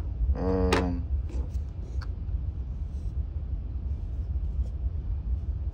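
Steady low rumble, with a few faint light clicks as an orange plastic-and-metal utility knife is picked up and handled.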